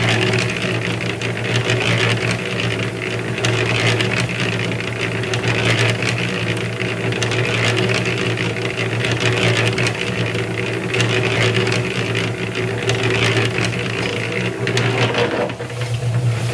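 Harbor Freight electric concrete mixer running with a steady hum while its drum turns a batch of wet concrete, with a gritty churning noise over the hum.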